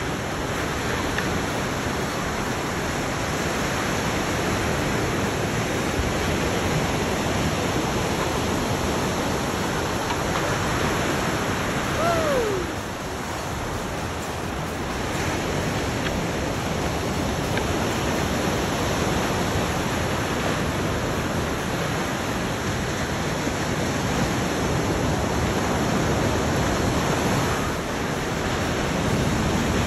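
Ocean surf breaking and washing ashore: a steady rush of noise. About twelve seconds in, a short falling tone cuts through briefly.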